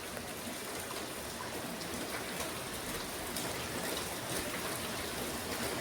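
Heavy rain falling steadily, pattering on surfaces.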